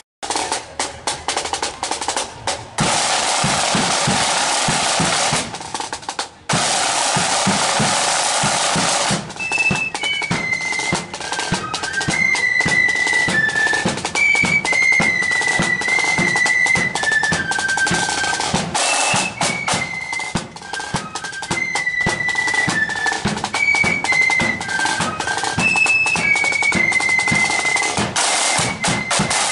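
Marching flute band: snare drums play long rolls and a steady beat, and about a third of the way in the flutes come in with a high melody over the drums.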